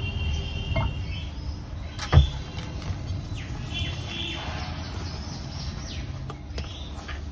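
Hands squeezing and kneading a crumbly flour-and-ghee dough in a steel bowl, with one sharp knock about two seconds in and birds chirping in the background.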